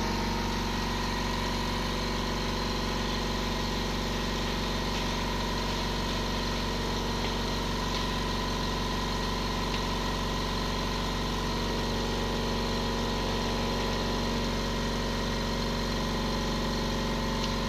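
Small electric air compressor feeding a pneumatic heat press, running with a steady, even drone.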